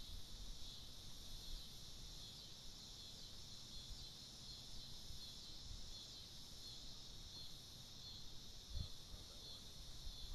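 Steady, high-pitched chorus of insects chirring without a break, with a low rumble underneath and one soft thump near the end.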